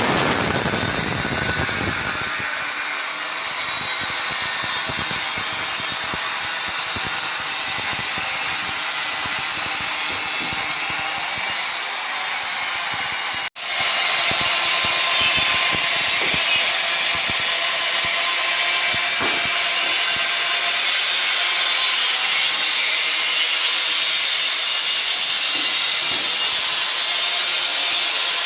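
Electric hand power tool running continuously on tile work, with a steady high grinding noise. It breaks off for an instant about halfway through and picks straight up again.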